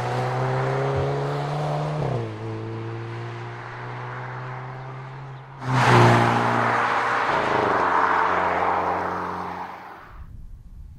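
Hyundai Kona N's 2.0-litre turbocharged four-cylinder engine and exhaust running under load, with a brief change in note about two seconds in. It gets suddenly much louder about six seconds in, then fades out near the end.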